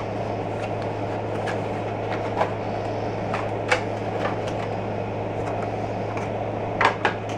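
A microphone's clear plastic packaging being handled, giving scattered light clicks and crackles, the loudest two close together near the end. Under them runs a steady low hum and hiss.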